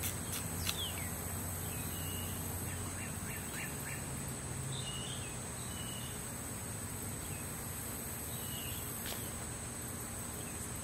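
Outdoor summer ambience: a steady high-pitched insect drone throughout, with a few short bird chirps in the first half and a faint low hum. A single sharp click comes about nine seconds in.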